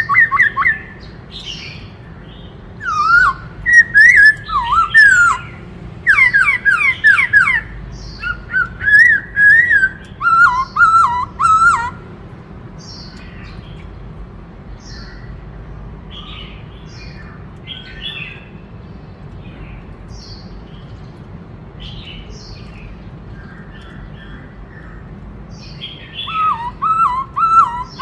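Black-throated laughingthrush singing: loud, rapid series of whistled notes that slide up and down, giving way to fainter, scattered calls in the middle, with loud whistling again near the end.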